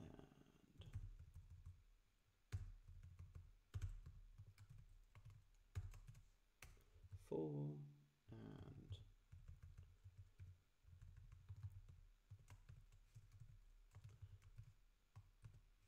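Faint typing on a computer keyboard: an irregular run of quick key clicks, with short pauses between bursts.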